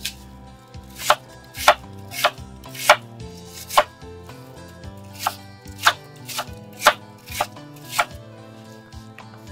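Kitchen knife slicing a peeled apple on a wooden cutting board, each stroke ending in a sharp knock of the blade on the board. About two strokes a second, eleven in all, in two runs with a short pause between.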